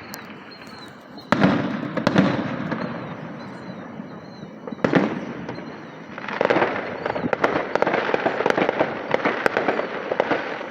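Aerial fireworks display: loud shell bursts about a second in, again a second later and near five seconds, then a long run of rapid crackling reports.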